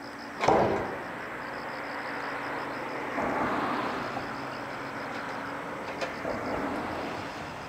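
A sharp knock, then a rushing noise that swells about three seconds in and slowly fades, with a smaller click near the end. A faint, evenly pulsing high chirp runs underneath.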